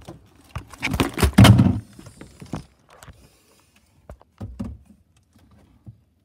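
Bottles and plastic containers being moved around on refrigerator shelves: a run of knocks and rattles with one heavier thump about a second and a half in, then a couple of lighter knocks a few seconds later.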